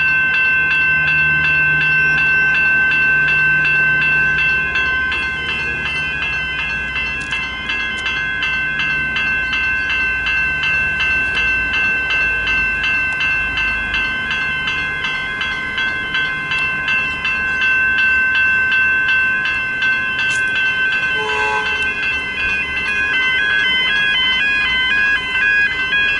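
General Signals electronic level crossing bell ringing continuously in rapid repeated strokes, the warning that sounds while the boom gates are down. Under it a low rumble, typical of a passing train, fades out about halfway.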